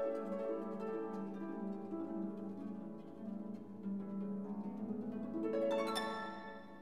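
Soft instrumental background music with a plucked-string melody of harp-like notes, a quick run of plucked notes near the end.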